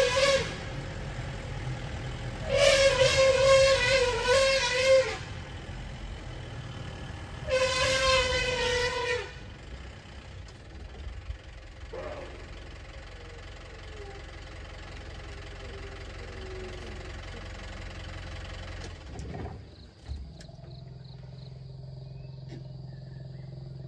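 Agitated Asian elephant trumpeting: two long calls with a wavering pitch, about 2.5 and 7.5 seconds in, after the tail of another at the very start. Underneath, a vehicle engine idles until about 19 seconds in.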